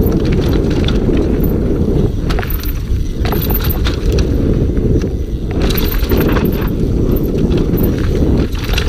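Scott Gambler downhill mountain bike ridden fast over a rough natural trail: tyres rumbling over dirt, roots and stones, with the chain and frame rattling in frequent sharp clicks, over heavy wind rumble on the camera microphone.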